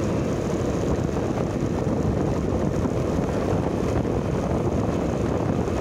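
Steady wind rumble on the microphone and road noise from riding along a road in an open vehicle. The rumble holds even throughout, with no clear engine note standing out.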